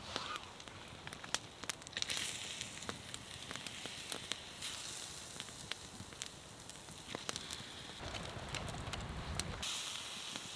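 Small wood campfire crackling, with frequent sharp pops. A brief low rumble about eight seconds in.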